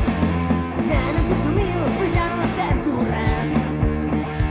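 Rock band recording: electric guitars, bass and drums playing a steady rock beat, with a male voice singing over them from about a second in.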